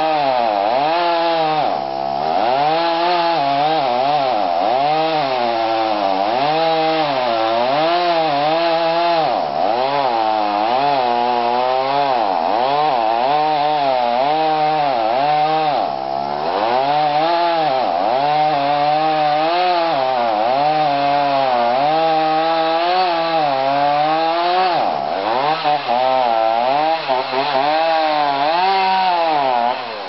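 Stihl MS290 two-stroke chainsaw at high revs cutting through a thick oak trunk. The engine pitch sags and recovers every second or so as the chain loads up in the cut.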